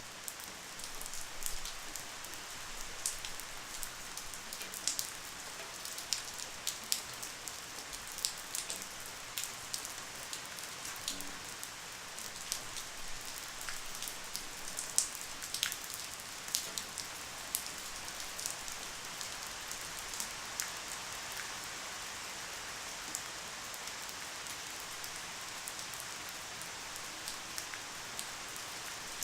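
Light rain falling steadily: an even soft hiss with many individual drops ticking sharply and irregularly throughout.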